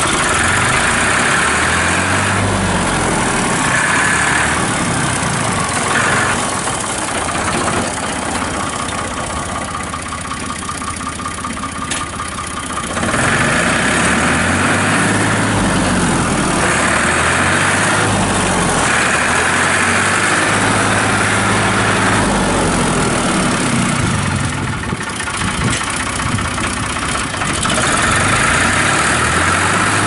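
1989 Ford 3910 Series II farm tractor's engine running as the tractor drives around, its note rising and falling. It grows quieter for a few seconds about a third of the way in as the tractor moves off, then loud again as it comes back.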